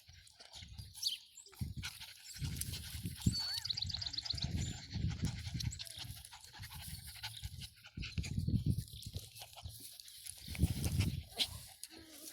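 Welsh Terrier and Lakeland Terrier puppies making small whines and yips while they play, over low rumbling swells on the microphone.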